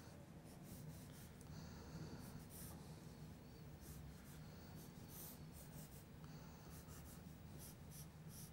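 Pencil sketching on paper taped to a light table: faint, quick scratching strokes, many in a row with short pauses between.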